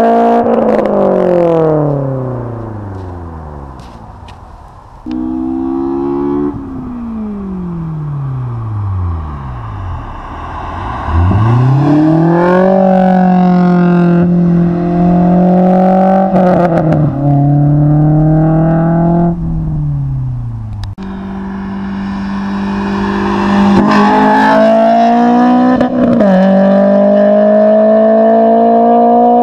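Honda S2000's 2.2-litre four-cylinder engine through an Invidia cat-back exhaust and test pipe, driven through the revs: its pitch falls away slowly several times as the throttle is lifted. It rises sharply about eleven seconds in, holds steady under throttle, and steps down at what sounds like gear changes. A long steady pull climbs slowly near the end.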